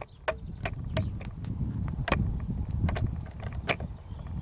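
Low wind rumble on the microphone, with scattered sharp clicks and ticks from handling of the rifle and its scope-mounted camera.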